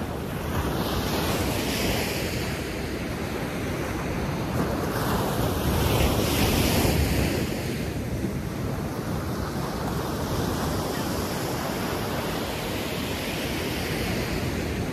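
Ocean surf washing and breaking on the beach, with wind buffeting the microphone; the surge swells loudest about six seconds in.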